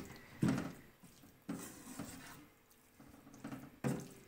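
Wooden spatula stirring chicken and chopped vegetables in a non-stick wok: a few separate knocks and scrapes against the pan.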